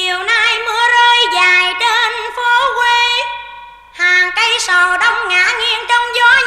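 A woman singing a slow Vietnamese song melody, with wide vibrato on held notes, breaking off for about a second midway and then going on.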